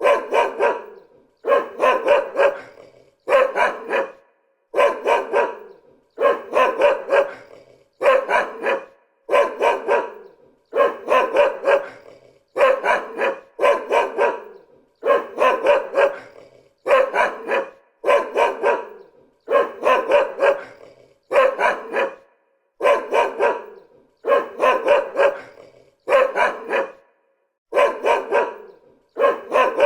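A dog barking over and over, in quick runs of two or three barks that repeat about every second and a half.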